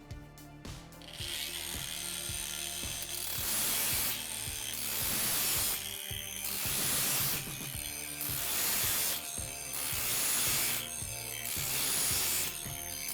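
Variable-speed angle grinder at low speed grinding the teeth of a sawmill bandsaw blade clamped in a vise. It gives a harsh rasping that swells and fades about once a second as the disc works tooth after tooth.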